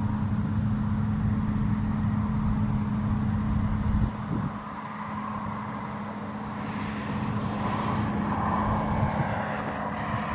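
Claas Trion 660 combine harvester running while harvesting: a steady engine and machinery drone with a constant hum. About four seconds in the low rumble falls away and the sound turns quieter and more of a rushing noise.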